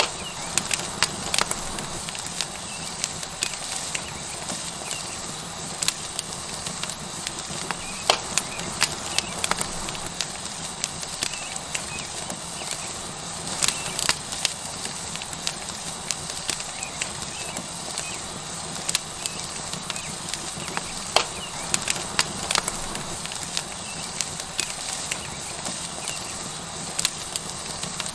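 Tomahawk steak sizzling on a hot rock over a wood fire: a steady hiss with frequent sharp, irregular pops and crackles from the fat and the burning wood.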